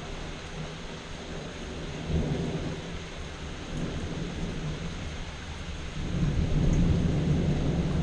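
Thunder rumbling over steady rain, the rumble swelling about two seconds in and again, louder, near the end.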